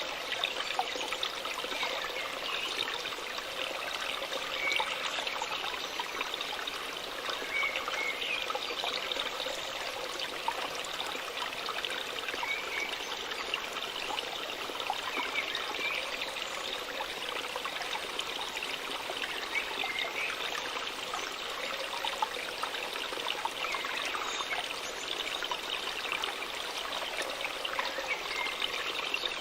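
Water of a small waterfall splashing and trickling steadily, with many fine splashes.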